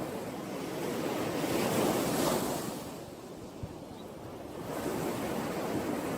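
Ocean waves breaking: the surf swells to a peak about two seconds in, ebbs, and swells again near the end.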